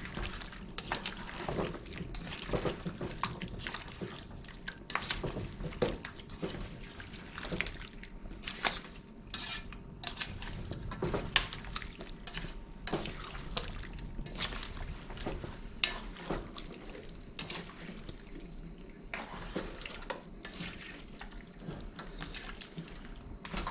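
Seasoned chicken cooking in a pot for a brown stew, a wet sizzle with irregular crackles and clinks throughout.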